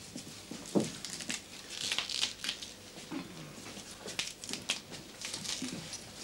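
Leafy vegetables being handled and trimmed: crisp rustling and crackling of leaves and stalks, coming in scattered clusters.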